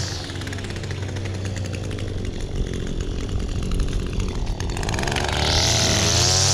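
Echo SRM 225 two-stroke string trimmer running low, then revving up about two thirds of the way in to a high whine as it starts cutting. A steady low engine drone from the idling push mower runs beneath it.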